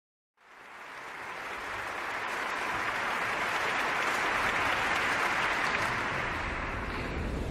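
Theatre audience applauding, fading in and swelling to steady clapping.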